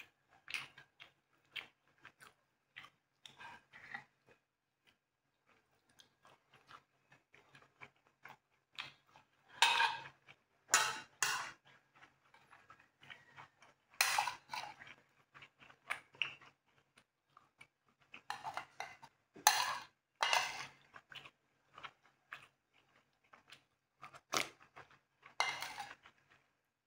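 Close-up eating sounds: chewing, with a metal spoon and fork clicking and scraping against a ceramic bowl of curry. Small scattered clicks throughout, with louder bursts every few seconds.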